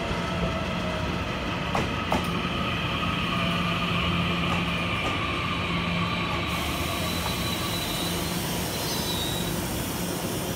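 Puyuma Express tilting electric multiple unit pulling into the station, a steady electric whine and wheel squeal slowly falling in pitch as it slows, with two sharp clicks from the wheels about two seconds in. A hiss joins a little past halfway.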